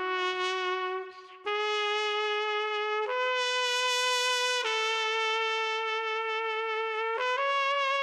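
Solo trumpet sample playing a slow phrase of long held notes. The pitch steps to a new note every second and a half or so, climbing overall, with a short break about a second in.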